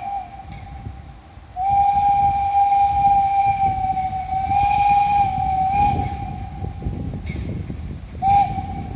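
Steam whistle of the ČSD class 310.0 tank locomotive 310.0134: a blast dies away just as it begins, then one long blast of about four seconds, and a short blast near the end.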